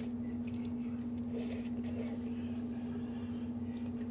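A steady, even hum that is the loudest thing throughout, with a few faint clicks and small handling noises over it.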